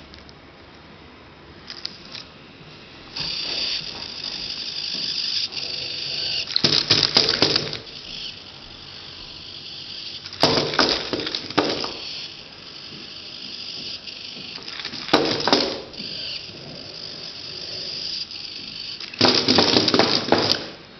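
Small wooden, Arduino-driven walking robot moving on a wooden floor: its small electric motors whine in long stretches, broken four times by bursts of rapid clattering, each about a second long, as its wooden parts knock about.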